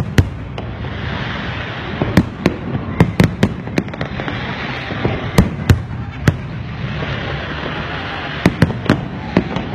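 Aerial firework shells bursting overhead: a quick, irregular series of sharp bangs, more than a dozen in all, bunched in clusters, over a steady hiss between them.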